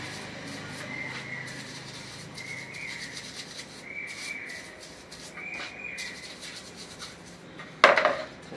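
A bristle brush scrubbing a petrol-wet Honda Livo carburetor body in four long strokes, about one every second and a half. A single sharp knock near the end is the loudest sound.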